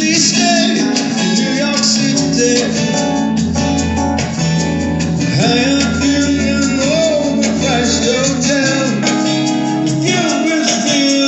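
Live music from a small band: a strummed acoustic guitar and a Yamaha Motif keyboard playing over a steady beat, with a lead melody line that bends and wavers.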